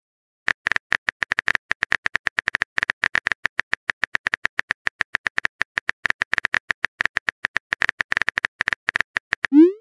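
Rapid run of keyboard tap clicks from a texting-story app's on-screen keyboard as a message is typed out, several taps a second. Near the end a rising swoosh starts as the message is sent.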